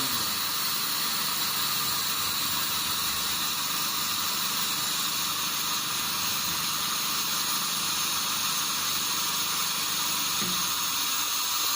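Steady, unbroken hiss from a truck-tyre vulcanizing machine, with a faint low hum beneath.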